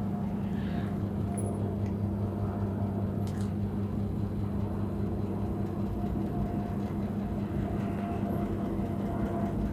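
Gorenje SensoCare W6222/SUK washing machine running, a steady motor hum that holds one pitch, with a few faint ticks.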